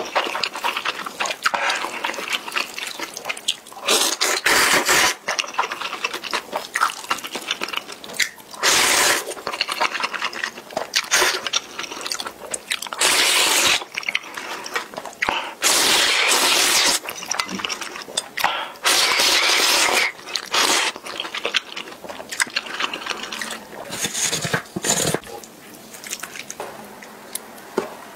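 Instant ramen noodles in broth being slurped from a bowl, in short loud bursts about a second long, some six or seven times, with quieter eating sounds between.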